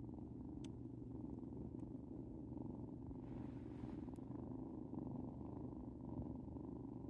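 Young tabby kitten purring steadily and without a break.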